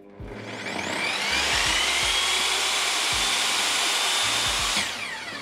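Einhell TP-CC 10 T 2000-watt table saw switched on. Its motor and blade spin up gently over about a second with a rising whine, which is its soft start. It then runs steadily and, near the end, is switched off and begins to wind down with a falling whine.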